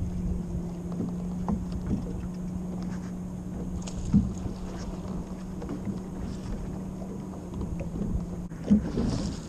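Steady hum of a bass boat's electric trolling motor, with wind rumbling on the microphone. A few small clicks and knocks come from reel handling and the deck, the most noticeable about four seconds in and near the end.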